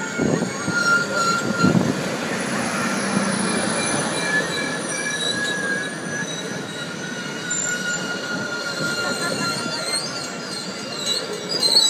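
Union Pacific passenger cars rolling past at close range, their steel wheels squealing against the rails in several steady high tones over the rumble of the running gear, with a couple of heavier thumps in the first two seconds.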